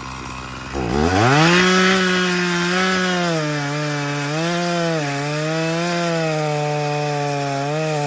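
Echo two-stroke chainsaw idling, then throttled up sharply about a second in and running at high speed, its pitch dipping and recovering several times as it cuts through wood.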